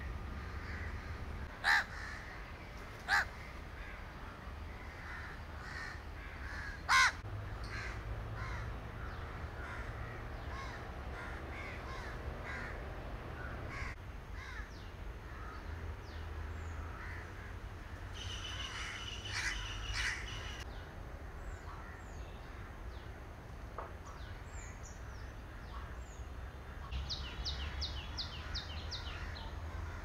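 Crows cawing: three loud caws in the first seven seconds, then many fainter calls and other bird calls, over a steady low rumble.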